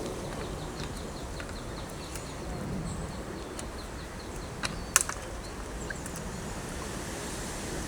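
Outdoor lakeside ambience: a steady low background rumble with a small bird's quick, high twittering through the first few seconds, and two sharp clicks close together about five seconds in.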